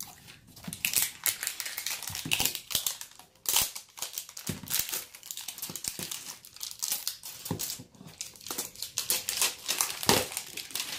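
Paper wrapping of an L.O.L. Surprise Under Wraps toy capsule being torn and crumpled off by hand: a dense, irregular run of crinkling and crackling, loudest just after ten seconds in.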